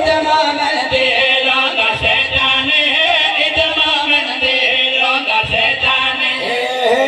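Men chanting a devotional qasida into microphones, the amplified voices sung in long held, wavering lines.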